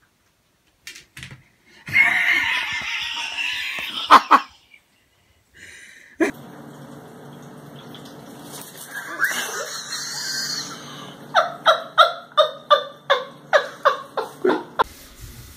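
A person laughing in a quick run of short bursts, about three a second, near the end. Earlier comes a loud, noisy rush lasting about two seconds.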